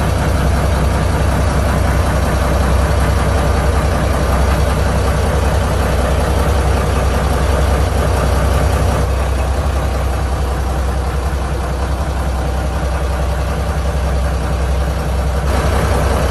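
Yanmar 6PHT six-cylinder turbo diesel inboard engine running steadily at a low, even speed, heard close up in the engine compartment.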